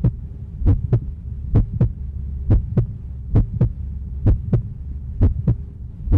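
Heartbeat sound effect: paired lub-dub beats, the pairs repeating a little faster than once a second, over a steady low hum.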